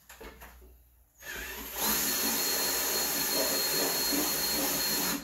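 Cordless drill boring a hole through a drum lid: it starts about a second in, runs up to a steady speed with a high whine, and stops suddenly at the end.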